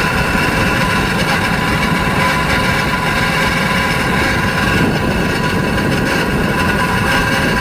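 Fan motor of a Daikin FXMQ250MVE ducted indoor unit running steadily, a constant noise with several steady whining tones over it. This is the abnormal fan-motor noise being shown as a fault.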